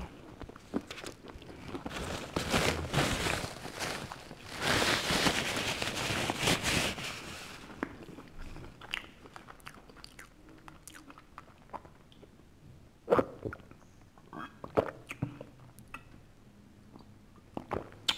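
Close-up crunching and chewing of pizza crust, loudest for about five seconds starting two seconds in. Then quieter mouth sounds and a few sharp clicks while soda is drunk from a glass bottle.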